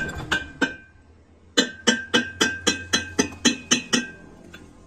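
Hammer blows on a steel part, each strike ringing briefly at the same pitch: three quick blows, then a steady run of about ten at roughly four a second.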